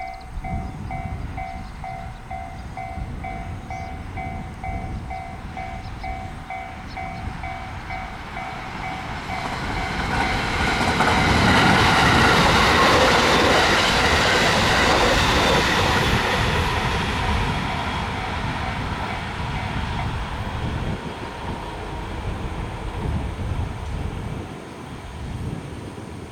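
Japanese level-crossing warning bell ringing its rapid repeated ding, then a train passing over the crossing: the noise builds about a third of the way in, is loudest in the middle, and fades off.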